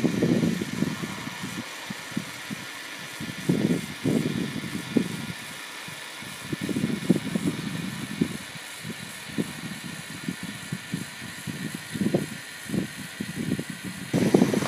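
LEGO Technic car's electric motor and gearbox running steadily as it creeps across gritty concrete, with irregular crunching and clicking from the wheels and gears.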